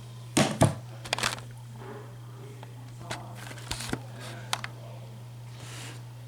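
A scattering of sharp clicks and knocks, a few in quick succession near the start and more in the middle, over a steady low hum.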